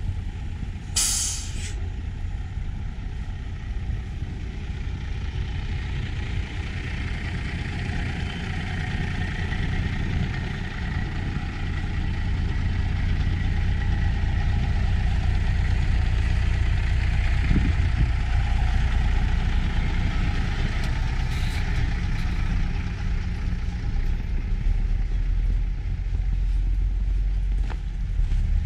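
A bus's air brakes give one short, sharp hiss about a second in. A steady low rumble of engine and street noise follows.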